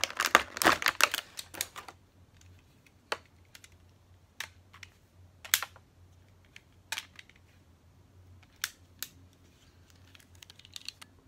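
Clear plastic blister packaging crinkling and crackling as a toy Wonder Ride Book is worked out of it. After about two seconds this gives way to a handful of separate sharp plastic clicks, a second or more apart, as the plastic book is handled.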